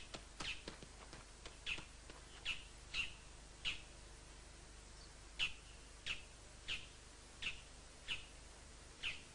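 Birds chirping: a string of short, faint, high chirps, each dropping quickly in pitch, about one every half-second to second, with a brief pause near the middle.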